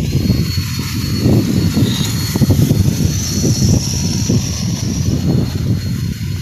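Wind rumbling and buffeting on a phone's microphone, loud and uneven.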